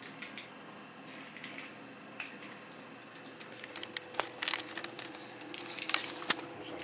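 Scattered light clicks and crinkling from eggs and a plastic egg tray being handled over a salad bowl, growing busier in the second half, over a faint steady hum.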